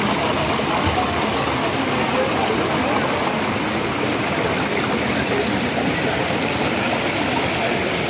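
Shallow rocky mountain stream splashing over stones in a small cascade: a steady, even rush of running water.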